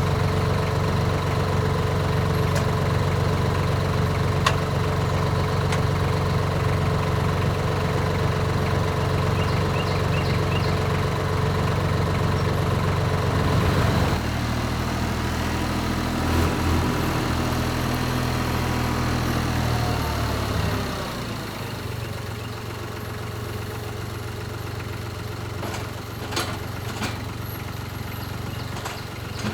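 An engine runs steadily. About halfway through its note shifts lower, and about two-thirds of the way in it drops to a quieter, lower idle. A few sharp clicks come near the end.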